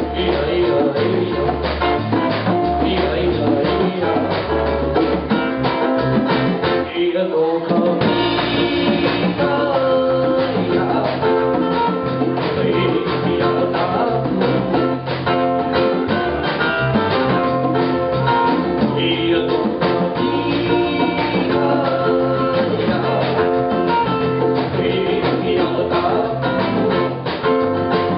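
Live band playing an island-style groove: lead singing over ukulele, electric bass, drum kit and congas. The bass and drums drop out briefly about seven seconds in, then the full band comes back in.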